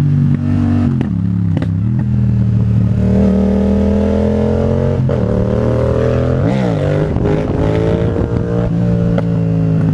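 Twin-cylinder motorcycle engine running, its pitch climbing gradually, with a quick blip of the throttle about six and a half seconds in.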